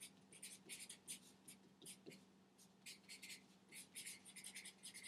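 Faint handwriting on a board: a quick, irregular run of short scratchy strokes, over a steady low electrical hum.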